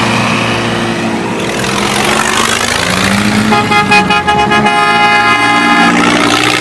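Off-road buggy engines running and revving as a line of buggies drives off along a dirt road. A vehicle horn sounds steadily from about three and a half seconds in until about six seconds.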